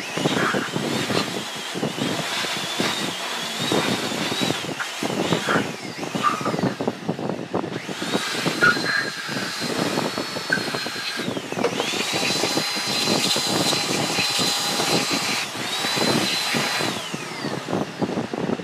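A small electric motor whining at a high pitch, speeding up, holding for a few seconds and spinning down again about three times, over a steady rough rushing noise with many small clatters.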